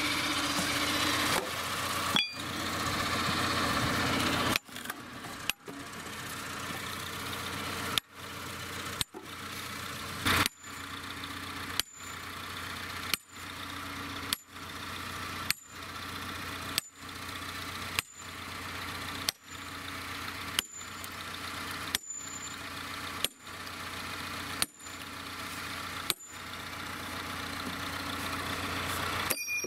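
Sledgehammer striking steel splitting wedges driven into a beech log, a steady series of sharp metallic blows about one every second and a quarter, each with a brief ring. An engine idles steadily underneath.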